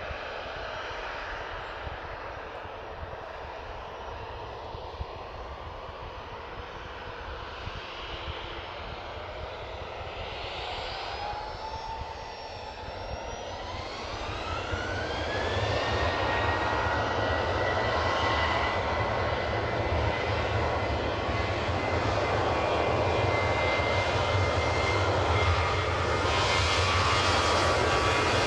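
Boeing 737-800's CFM56 jet engines spooling up for takeoff: a whine rises in pitch about halfway through, then holds steady at takeoff thrust as the engine noise grows louder.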